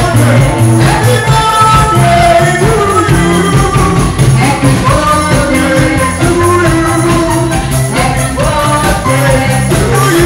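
Live band music with a singer and a steady drum beat.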